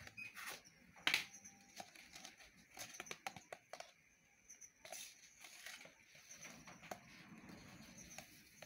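Faint clicks and rustling from a plastic baking powder tub being handled over a mixing bowl, with a sharper click about a second in.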